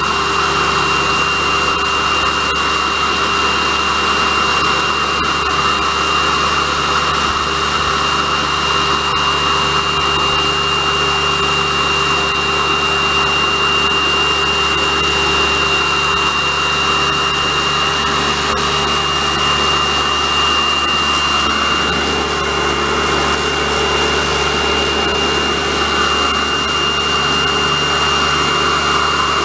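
Electric pressure washer running steadily with a thin high whine, its water jet hissing as it rinses degreaser off a stripped motorcycle frame.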